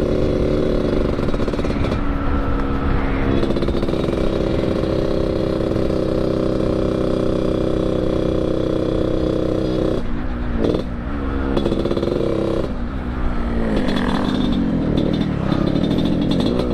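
Yamaha RX-King's 135cc two-stroke single engine running under way through an under-belly expansion-chamber exhaust tuned for the deep Medan-style 'ngorok' growl. The note holds steady, dips briefly twice, about ten and thirteen seconds in, then climbs again near the end.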